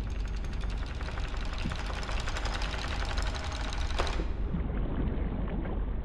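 Underwater soundtrack of dense, rapid crackling clicks over a steady low rumble, with one sharp crack about four seconds in, after which the sound turns duller.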